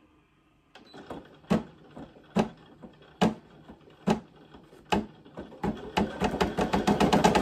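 Brother PE800 embroidery machine starting to stitch: single needle strokes about one a second at first, then speeding up into a fast, steady run of stitching near the end.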